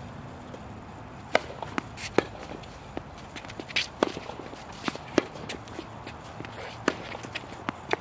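Tennis rally on an outdoor hard court: sharp pops of the ball struck by rackets and bouncing on the court, about one every second or so, with players' shoes scuffing on the court surface.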